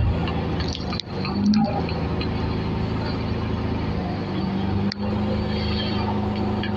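Engine of a truck-mounted crane running steadily under load as it lifts a steel frame on its hook, with two brief dips in level.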